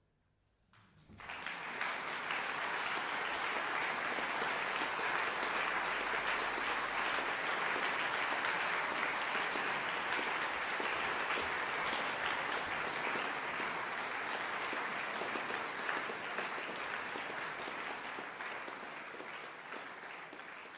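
Brief near silence, then a concert audience breaks into applause about a second in; the clapping holds steady and eases off slightly near the end.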